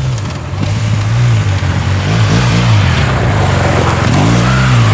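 BMW R1200 GS Adventure's boxer-twin engine riding up a dirt track, revving up and dropping back twice as the throttle is worked, getting louder as the bike approaches.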